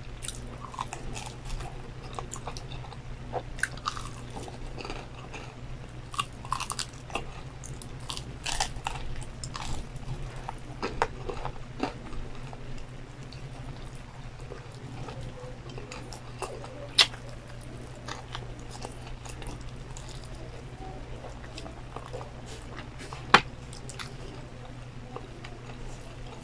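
Close-up chewing and biting of crispy McDonald's fried chicken, with crunching of the breaded skin and wet mouth sounds. The crunching is densest in the first half, two sharp clicks stand out later, and a steady low hum runs underneath.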